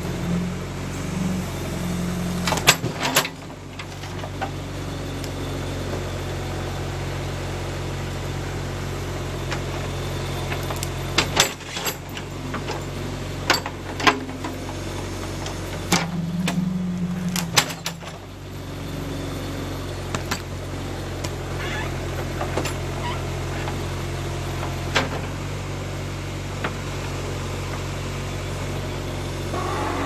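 John Deere 310A backhoe's engine running steadily as the backhoe digs at a stump, its hum changing in strength several times. Sharp clanks and knocks from the bucket and linkage come at irregular intervals over it.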